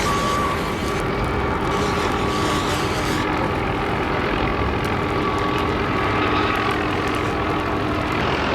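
Steady engine noise: a constant rumble with a held high whine over it and a lower steady tone that drops out near the end.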